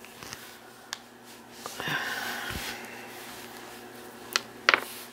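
Quiet handling of costume jewelry on a cloth: a soft rustle and a few light clicks of metal chain and beads against each other, the sharpest ones about four and a half seconds in.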